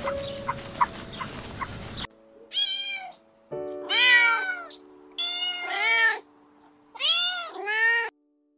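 Domestic cat meowing: a string of about five or six separate meows, each rising and falling in pitch, some short and one longer.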